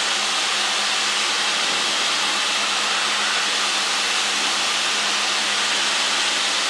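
Steady cabin noise of a light aircraft in cruising flight: the engine and propeller drone under an even rush of air, heard from inside the cockpit.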